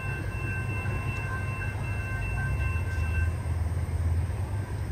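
COASTER push-pull commuter train approaching slowly: a steady low rumble that swells a little toward the end. Faint thin high tones sound over it and stop about three seconds in.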